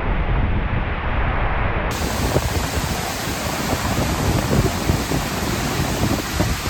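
Njupeskär waterfall, a 93-metre fall with a 70-metre free drop, making a loud, steady rush of falling water and spray close by.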